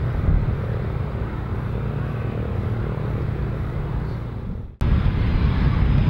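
Steady low rumble of aircraft engines. About three-quarters of the way through it dips, cuts off abruptly, then comes back louder.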